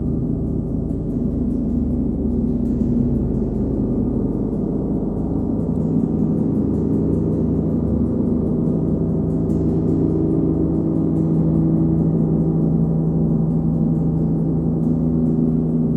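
A 39-inch Nepalese wind gong sounds a dense, steady low hum with many overtones that swell and fade. It is kept going by light, repeated strokes of a hard rubber ball mallet.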